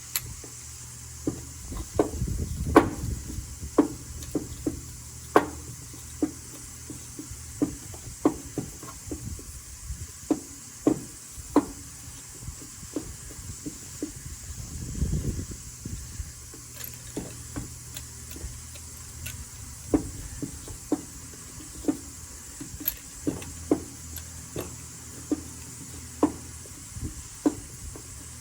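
Irregular light clicks and knocks of hand tools and parts being handled during engine work, roughly one or two a second, over a steady low hum, with a duller, longer knock a couple of seconds in and again about halfway.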